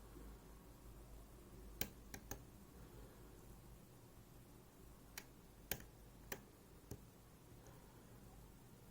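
Lock picking tools clicking against a MIWA U9 lock cylinder. About seven faint, sharp clicks come irregularly, a few at a time, over near-silent room tone.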